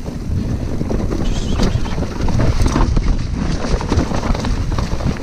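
Devinci Spartan mountain bike riding fast down a dirt singletrack: wind rushing over the camera microphone, with tyre rumble and many small rattles and knocks from the bike over bumps.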